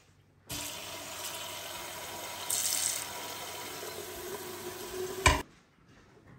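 Kitchen tap running water into a stainless steel pot, filling it for boiling. The flow stops about five seconds in with a single sharp knock, the loudest sound.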